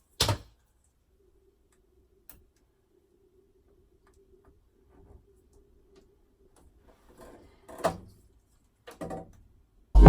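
A few faint knocks and clicks of things being handled, with a faint steady hum in between; loud upbeat music cuts in right at the end.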